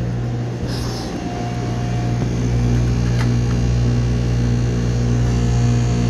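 Ground-source heat pump running with a steady low electrical hum, getting a little louder a couple of seconds in.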